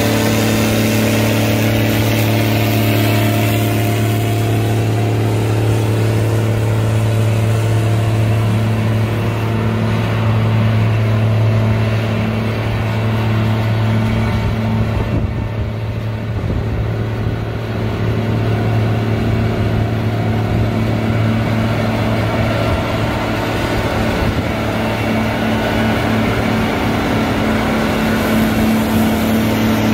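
2003 Gleaner R75 combine's diesel engine running steadily at idle, a deep even drone, a little fainter around the middle.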